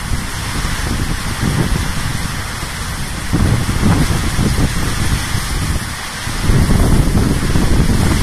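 Heavy hurricane rain and strong wind, with gusts buffeting the microphone in a low rumble. The gusts swell about a third of the way in and again, louder, near the end.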